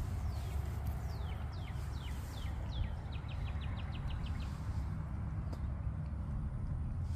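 A songbird singing: a series of downslurred whistles that come faster and end in a quick trill of about ten short notes, under a steady low rumble.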